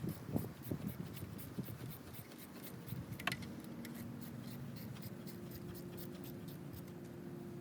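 Hand tools working the water pump off a BMW 328i engine: a run of rapid light clicks with some scraping and rubbing.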